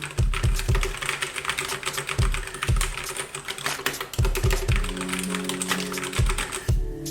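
Fast typing on a wireless mechanical keyboard, a dense run of key clicks, over background music with low bass notes and a beat.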